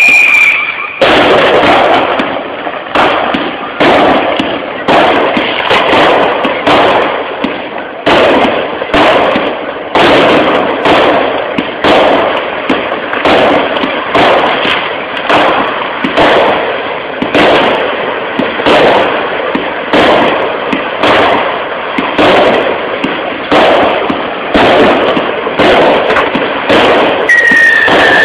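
Fireworks going off in a steady series of bangs, about one a second, each dying away before the next. A falling whistle sounds at the start and another near the end.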